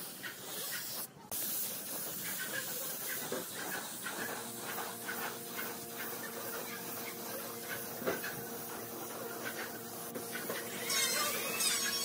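Compressed-air spray gun hissing as it sprays finish onto the wooden bed frame, with a short break about a second in. A steady hum joins about four seconds in, and near the end a bird calls several times in high, warbling notes.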